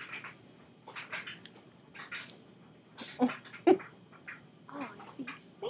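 Two women giggling under their breath: scattered short, breathy laughs, the two loudest a little past three seconds in.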